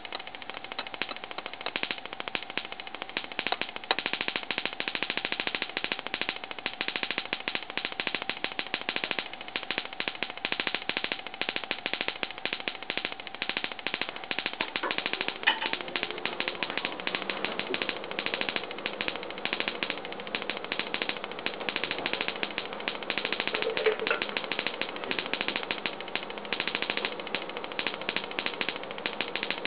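High-voltage sparks from an automotive ignition coil, switched by a 555 timer circuit, snapping across the gap between two aluminium cans in a rapid, continuous train of sharp clicks.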